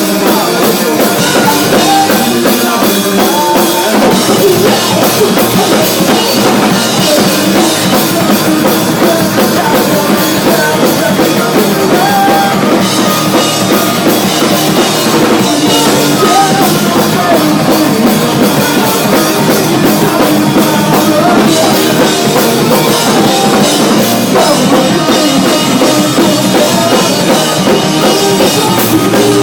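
Punk rock band playing live at full volume: drum kit with electric guitars, dense and steady throughout.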